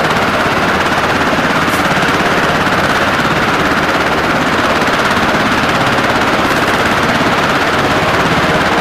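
Helicopter rotor beating in fast, even pulses over a loud, steady rush of engine noise.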